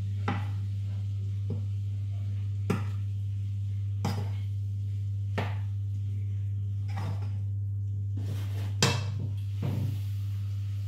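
Wooden spoon stirring minced beef browning in a frying pan, knocking and scraping against the pan about seven times, the loudest knock near the end, over a steady low hum.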